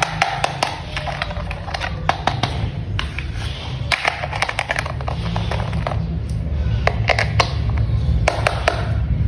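Plastic toy vehicle parts clicking and snapping together as they are fitted, in many sharp irregular clicks and taps, some in quick clusters, over a steady low hum.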